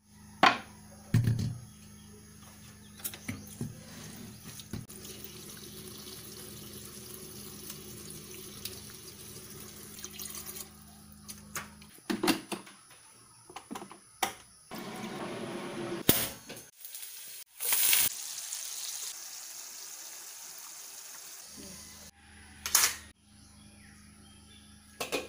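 Water from a kitchen tap running into a stainless steel sink, stopping about ten seconds in, with sharp knocks and clatter of cookware being handled now and then.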